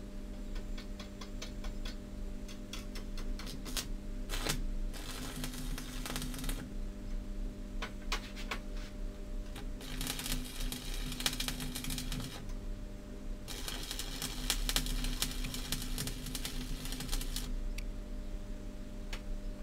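Stick (arc) welding: scattered ticks as the electrode is struck, then three spells of steady crackling arc, the last about four seconds long, over a low steady hum.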